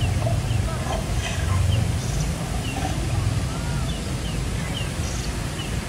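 Steady rush of water cascading down an artificial rock volcano, with a deep rumble beneath it and faint high chirps or distant voices over the top.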